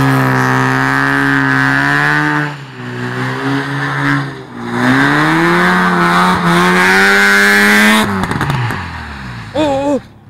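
Mazda RX-7's rotary engine held at high revs, easing off about two and a half seconds in, climbing and holding again from about five seconds, then falling away sharply about eight seconds in. A brief shout of a voice comes near the end.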